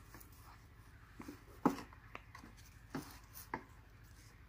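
A handful of light wooden knocks and taps as two cut-out wooden panels are handled and set against each other, the sharpest about a second and a half in.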